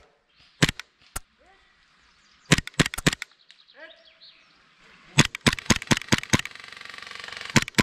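Airsoft gunfire: sharp clicking shots, a couple singly at first, then rapid bursts of four or five, with faint distant voices in between. A steady buzz rises just before a last pair of shots near the end.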